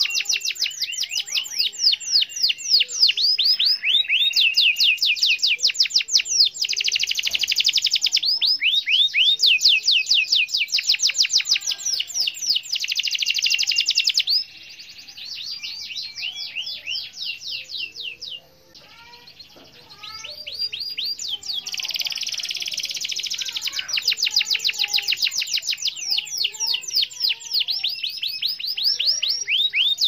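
Domestic canary singing long rolls: continuous rapid trills of quickly repeated high notes. The song goes softer and sparser in the middle, almost stopping for a moment, then returns at full strength.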